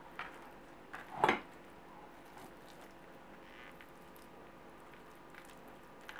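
Quiet handling noises of fingers pressing minced-meat stuffing between the slices of a fanned eggplant on a plastic cutting board: soft squishing and small clicks, with one louder short bump about a second in.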